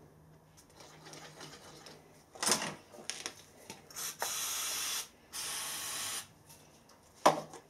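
An aerosol can spraying in two short hisses, each just under a second, with a brief pause between them; a couple of short knocks from handling come before and after.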